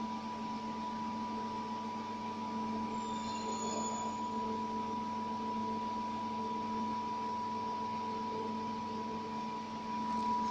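Steady machine hum: a constant high tone over a lower drone and a light hiss, with a brief faint high chirp about three seconds in.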